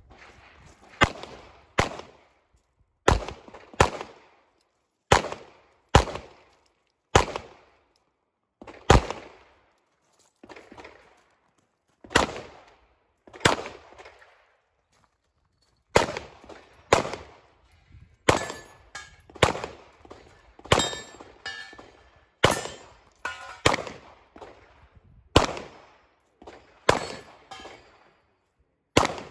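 Handgun shots fired in quick pairs less than a second apart, about two dozen in all, each with a short echoing tail, broken by a few gaps of two to three seconds.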